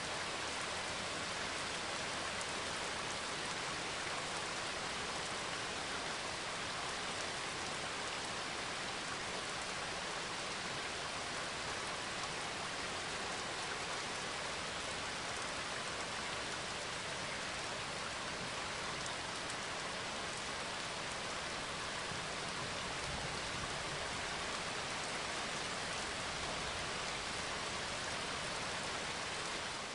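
Steady rain ambience: an even hiss of falling rain at a constant level.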